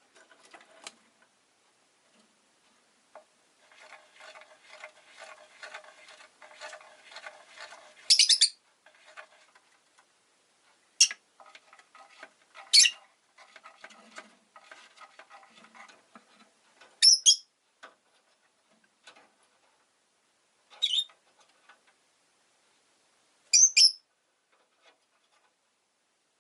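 Rosy-faced lovebird chirping: a fast, soft stuttering chatter for several seconds, then six loud, shrill chirps a few seconds apart, with quieter chatter between them.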